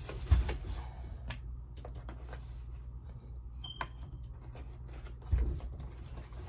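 Handling noise from a small plastic security light camera being turned over and tried out: scattered light clicks and taps, with a thump about a third of a second in and another a little after five seconds. A short high beep sounds a little past the middle, over a steady low hum.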